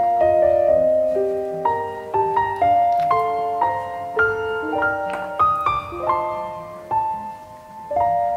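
Background music: a gentle piano piece, notes and chords played at an unhurried pace.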